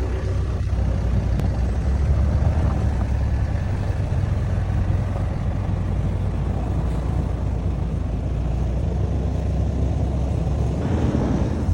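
Dodge Power Wagon truck engine running steadily under load, towing a heavy trailer slowly uphill.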